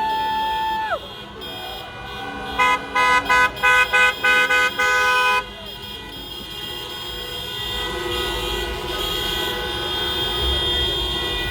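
Car horns honking in support of a passing street march: one held honk near the start, then a run of short rhythmic honks, about three a second, from around the third to the fifth second. After that a steady street hubbub with more horns holding faintly.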